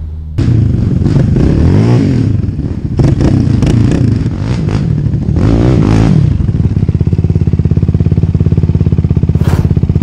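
Yamaha sport quads (YFZ450R and Raptor 700R) with single-cylinder four-stroke engines, revving up and down repeatedly as they ride, then running steadily with an even throb near the end before the sound cuts off suddenly.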